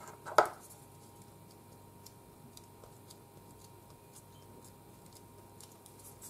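Faint light ticks, scattered about every half second over quiet room tone, with one short louder click about half a second in.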